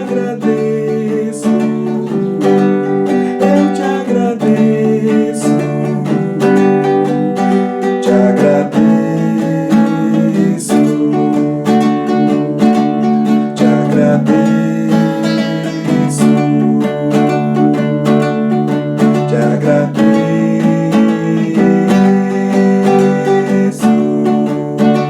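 Music: an acoustic guitar strumming a worship song, with sustained chords that change every second or two.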